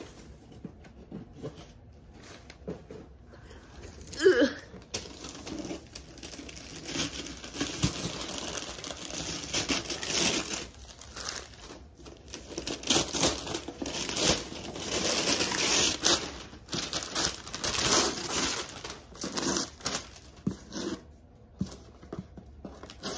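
Paper gift wrapping crinkling and tearing as presents are unwrapped, in irregular rustling bursts that are busiest through the middle. A brief vocal sound comes about four seconds in.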